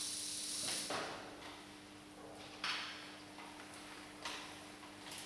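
A steady hiss and hum that stop about a second in, followed by a few faint, separate clicks and knocks.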